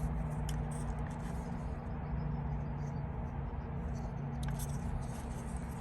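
A few faint clicks of a flathead screwdriver prying at the plastic retaining clip of a steering-column stalk, over a steady low background hum.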